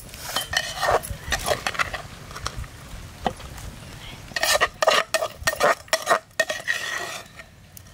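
Metal ladle scraping and clanking against a metal cooking pot as the biryani is stirred. The clanks come thick and fast from about halfway in, then die away near the end.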